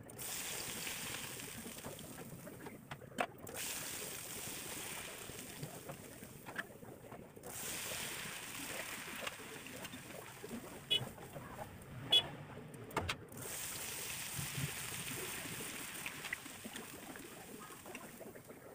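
Shredded potato deep-frying in hot oil in an iron wok: a steady sizzling hiss that cuts out briefly three times, with a few sharp knocks and scrapes of a metal spoon against the pan.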